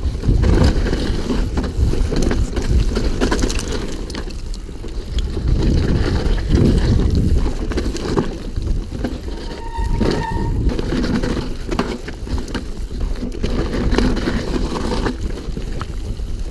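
Wind buffeting the microphone of a bicycle being ridden over rough ground, with a rumbling, rattling noise from the ride. A brief high tone sounds about ten seconds in.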